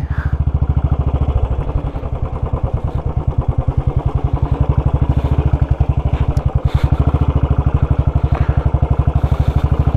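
Motorcycle engine running at low, steady revs with an even beat of about ten pulses a second, as the bike rides slowly over a rutted mud road, with a few faint knocks.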